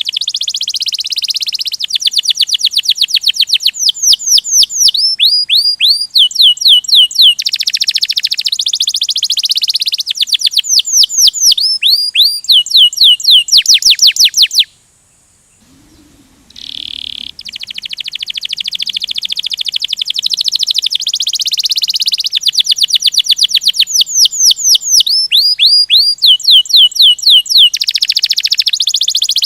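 Domestic canary singing a fast rolling song of rapid trills and rows of quick downward-sweeping whistled notes. The song breaks off for about two seconds midway, then resumes.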